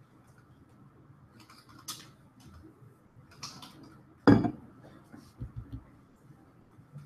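A few scattered light clicks and clinks, then one sharp, louder knock about four seconds in, followed by a few soft low thumps.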